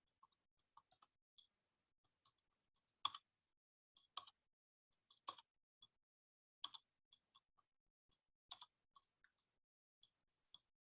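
Faint, irregular clicks at a computer over near silence, a handful of them louder than the rest.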